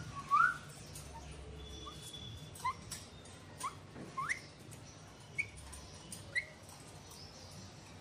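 Alexandrine parakeet giving short whistled chirps that each rise quickly in pitch, about seven of them spread a second or so apart, the first the loudest.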